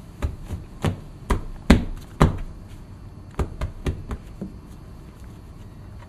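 A quick, irregular run of about ten sharp knocks or taps of something hard, the loudest two near the middle, ending about four and a half seconds in.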